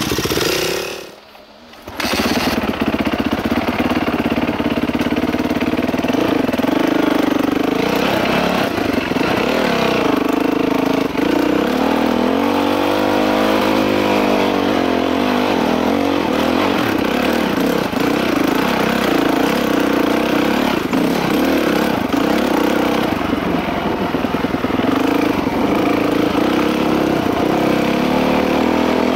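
Dirt bike engine being ridden along a trail, its pitch rising and falling as the throttle opens and closes. The sound drops away briefly about a second in, then the engine runs on without a break.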